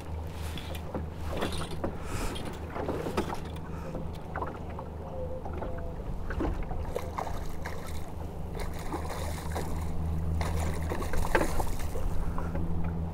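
Small waves slapping and knocking against the hull of a drifting fishing boat, over a steady rumble of wind on the microphone.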